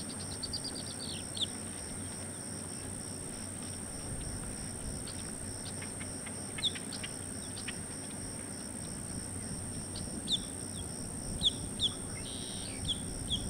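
Short, high, downward-sliding chirps, a quick run of them in the first second, then scattered singles that grow more frequent in the last few seconds. Under them runs a steady high insect buzz.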